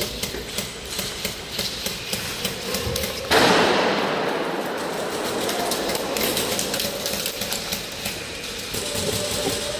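Airsoft guns firing, scattered sharp snapping shots through the whole stretch. About three seconds in a sudden loud rushing hiss starts and slowly fades over several seconds.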